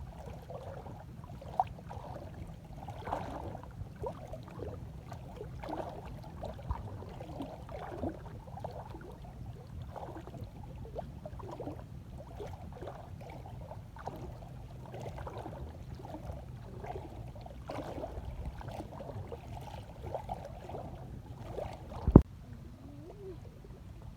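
Water sloshing and splashing in small irregular bursts over a steady low hum, with one sharp knock near the end.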